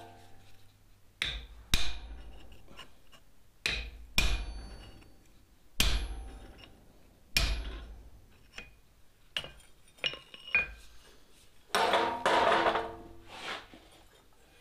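Hammer blows on a very small hand-held fuller, driving a pouring point into the rim of a hot steel flux-spoon bowl set in a bolster block on the anvil. About six sharp, ringing strikes come one to two seconds apart, then lighter taps and a brief metallic clatter near the end.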